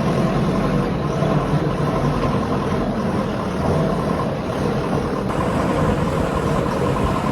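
Heavy diesel engine of earthmoving machinery running steadily at a constant load, with no sharp knocks or clanks.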